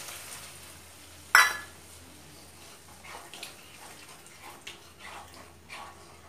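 Water poured into a hot kadai of tomato, potato and capsicum pav bhaji base, fading out in the first second, then one sharp knock about a second and a half in. After that, a wooden spatula stirring the wet vegetables in the pan with soft irregular taps and scrapes.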